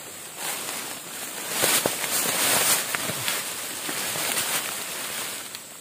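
Leaves and undergrowth rustling as someone pushes through dense bankside plants, louder for a couple of seconds in the middle, with a few faint snaps.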